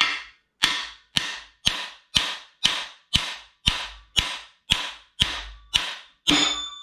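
Hammer blows driving a cam bearing removal tool's rod through a 350 small-block Chevy block to push out a camshaft bearing: thirteen sharp metallic strikes about two a second, each ringing briefly. The last strike ends in a ringing ding, the tip of the rod's nut hitting the end of the engine stand.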